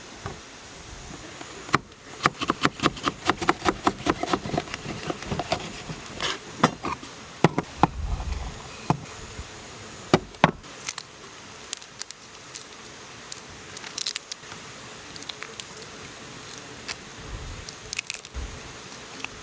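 A fast run of sharp clicks, about five a second, then scattered single knocks and taps, like objects being handled.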